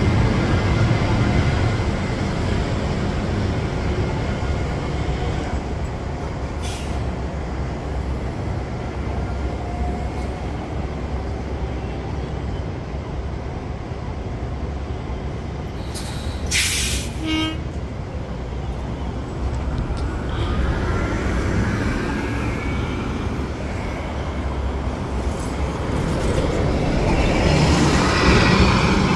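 Heavy vehicles running in steady traffic. A short, sharp hiss of air comes about seventeen seconds in, and a vehicle draws closer and grows louder near the end.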